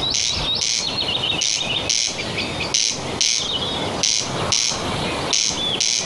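Corncrake calling: a harsh, rasping double "crex-crex", two notes about half a second apart, repeated five times about every 1.3 seconds.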